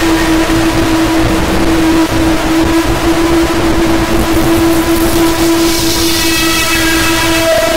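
Brainwave-entrainment audio: a steady synthesized tone pitched on E, set over a loud noise bed. From about two-thirds of the way in, a cluster of fainter, higher tones fades in.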